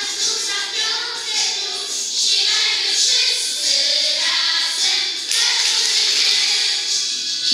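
A group of children singing together in chorus over musical accompaniment.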